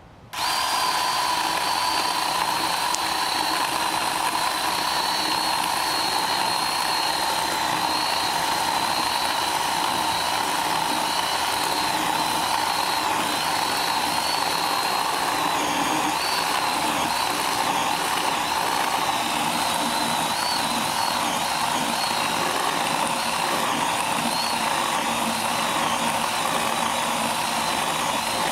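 Ryobi 18-volt 10-inch battery chainsaw running at full speed and cutting through a downed log about 4 inches thick. Its electric motor and chain give a steady high whine that starts suddenly, with the pitch wavering slightly now and then as the cut loads it.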